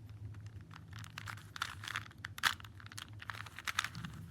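A standard Rubik's-brand 3x3 cube, not a speed cube, being twisted by hand: a quick run of plastic clicks and clacks as the layers turn, with one sharper clack about halfway through.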